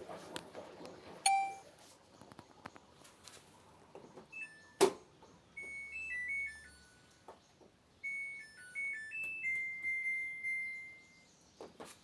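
Samsung WW70T4020CX washing machine's electronic chime playing two short beeping melodies, the second ending on a long held note, with a few sharp clicks and knocks in between.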